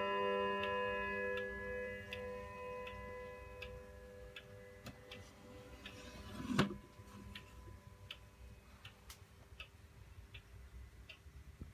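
Dutch Friese tailed wall clock with an 8-day weight-driven movement: the last ringing notes of its chime die away, then it ticks steadily at about one tick every three-quarters of a second. About six and a half seconds in there is a single louder wooden knock, the side door of the clock's hood being shut.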